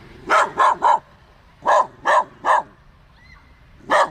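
A dog barking: two quick runs of three barks, then a single bark near the end.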